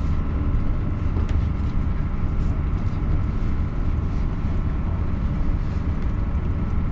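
Routemaster bus's diesel engine running steadily under way, heard from inside the bus, with the hum of the ride beneath it.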